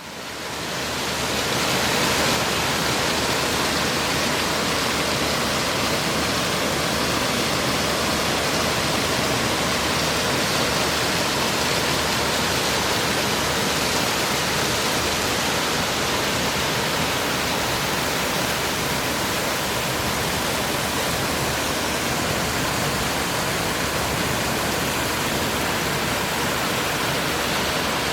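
Stream water falling in small cascades and flowing over stones: a steady, even rushing gurgle that fades in over the first two seconds.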